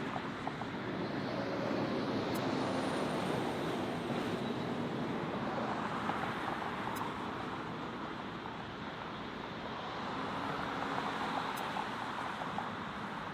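Steady roar of jet airliner engines at an airport, swelling twice and easing off, with a faint high whine falling in pitch early on and wind buffeting the microphone.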